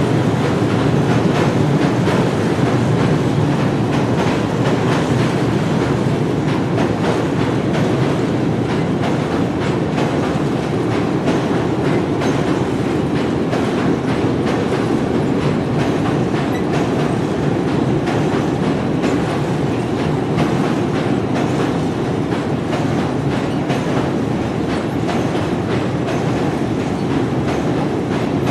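A train running along the track: a steady, loud rumble, dense with small clicks from the wheels on the rails.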